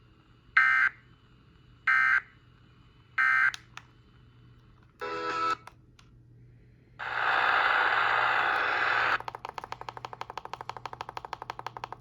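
Three short bursts of EAS SAME digital data tones, about a second and a quarter apart. This is the end-of-message code closing a NOAA Weather Radio tornado warning. Later comes a burst of hiss lasting about two seconds, followed by rapid, even clicking.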